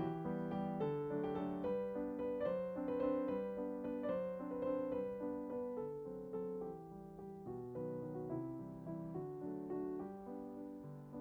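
Background music: a gentle piano piece with steady repeated notes.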